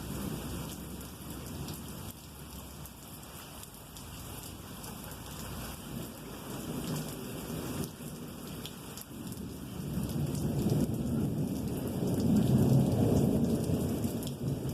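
Long, continuous rolling thunder rumbling under steady rain. The rumble swells to its loudest about two-thirds of the way through, then eases off.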